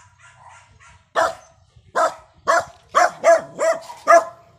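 A dog barking repeatedly: about seven sharp barks, starting about a second in and coming faster toward the end.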